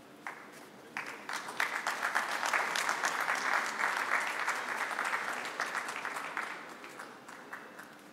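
An audience applauding: a round of hand clapping that starts about a second in, swells, then thins out and dies away near the end.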